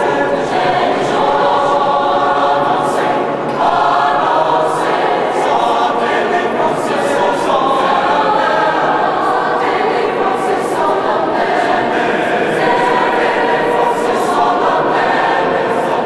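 A mixed choir of young men and women singing a slow piece with long held chords, inside a large stone cathedral.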